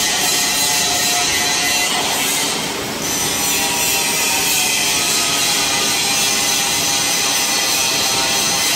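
Two-head gantry CNC drilling machine running: a steady mechanical whine made of several held tones, with a brief dip and a shift in pitch about two to three seconds in as the drill heads travel across the table.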